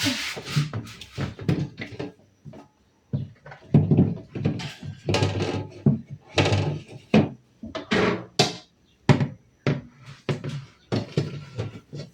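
Irregular knocks, clatters and scrapes of household items being handled and set down.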